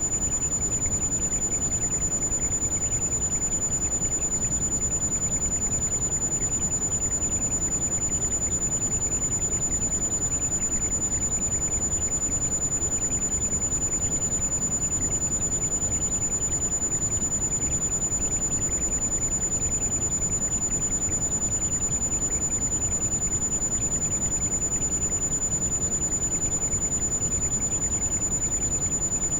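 Heavy rain, a steady low rush of noise, with a single constant high-pitched tone mixed over it: a tinnitus tone for tinnitus sound therapy.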